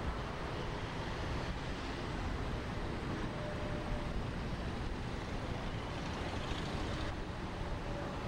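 Steady road traffic noise: a continuous even hiss with no distinct events.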